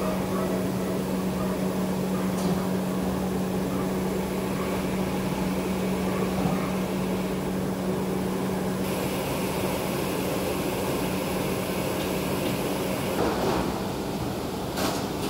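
Steady rushing noise of commercial gas burners lit under large stockpots, with the low drone of a kitchen fan, stronger over the first two-thirds. A single knock near the end.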